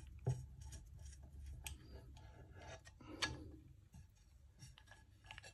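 Faint, scattered metallic clicks and light scraping of a Phillips screw and screwdriver as the frying pan's handle screw is worked back into the threaded stud on the pan.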